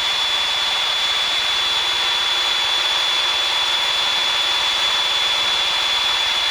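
Steady cabin drone of a Piper PA-28-161 in flight, its four-cylinder engine and propeller running at an even power setting, heard as a constant rushing hiss with a thin high whine over it.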